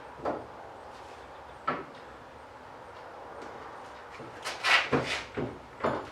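Knocks and clunks of a truck door being worked onto its hinges: two single knocks early, then a quick run of louder clunks near the end.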